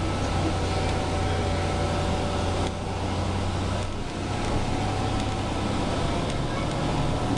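Inside a moving bus: a steady engine drone and road noise, with a faint steady whine above it. The noise dips briefly twice near the middle.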